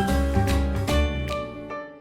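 Background music: light instrumental music of plucked notes, fading down near the end.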